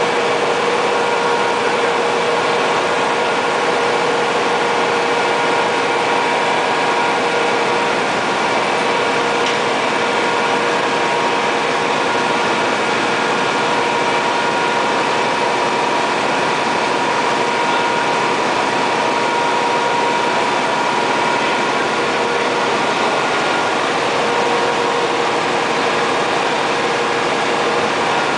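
Steady, loud din of large engine-driven generator sets running in an engine room: an even machinery noise with a steady humming tone over it.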